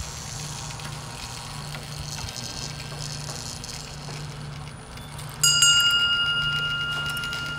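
A small brass bell on a motorised wooden kinetic sculpture is struck once about five seconds in and rings on with a clear tone that slowly dies away. Under it runs a low, steady, gently pulsing hum.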